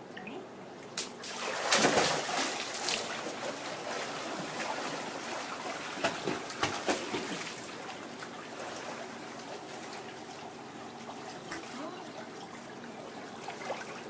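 Water splashing and sloshing as a Shetland sheepdog swims, with a loud splash about two seconds in and a few sharper splashes around six to seven seconds, then steady trickling and lapping water.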